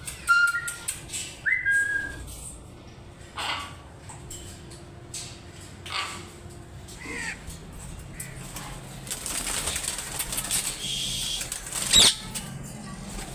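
Parrots calling: two short whistles that rise and then hold in the first two seconds, then scattered sharp squawks, with a stretch of rustling wing flaps and one loud sharp call near the end.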